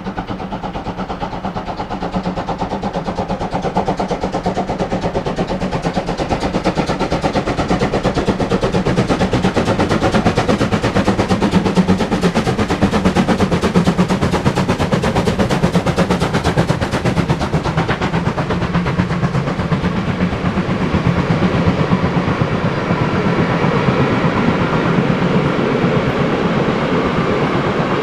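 Steam locomotive working hard as it passes, its exhaust beats coming in rapid succession and growing louder toward the middle. In the second half the beats thin out and the train's wagons roll by with some high-pitched wheel noise.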